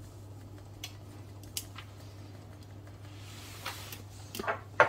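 Crushed chilli flakes being sprinkled onto a pizza: a few light clicks and a soft rustle, with sharper ticks near the end, over a steady low hum.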